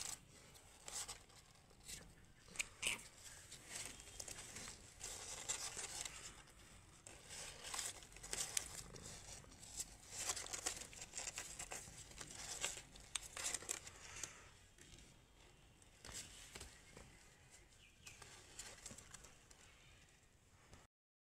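Faint irregular rustling and crinkling with small clicks, from a nursing mother cat and her newborn kittens shifting against the cardboard floor of their box. The sound cuts off suddenly near the end.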